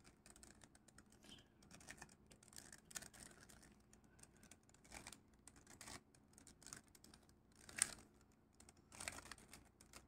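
Faint clicking and rattling of a plastic 3x3 Rubik's cube as its layers are turned one after another through a corner-swapping algorithm, with a louder click near the end.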